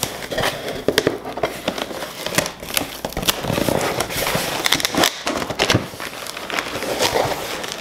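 Clear plastic packaging bag crinkling and crackling as hands press and shift it inside a cardboard box, with many small sharp crackles throughout.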